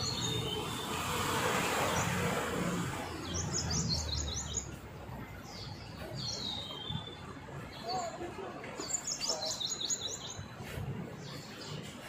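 Small songbirds chirping in quick clusters of high notes, three bursts a few seconds apart, over steady background noise.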